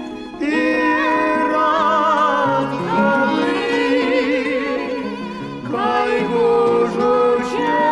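A Romani song: a voice singing long held notes with wide vibrato over instrumental accompaniment, with a short break just before the next phrase near the middle.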